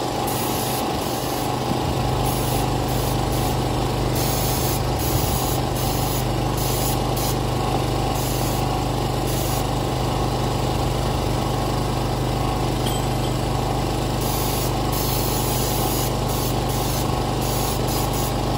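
Paint spray gun hissing in short bursts, applying Massey Ferguson Stoneleigh grey to a tractor engine block, over the steady running of a small portable generator.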